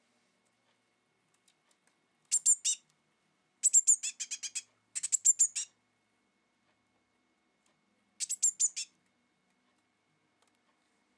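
Young blue tit calling: four quick runs of short, high-pitched chirps, loud and close, with gaps of quiet between them.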